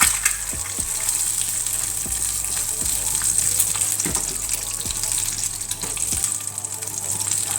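Eggs frying in a pan: a steady sizzle, with a few light knocks.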